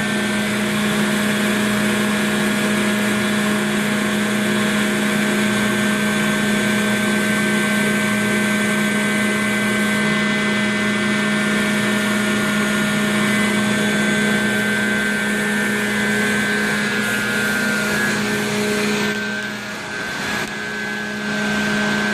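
Large condenser water pumps driven by 100-horsepower electric motors running: a loud, steady mechanical drone with a strong hum and several higher steady whine tones over a broad hiss. The level dips briefly near the end.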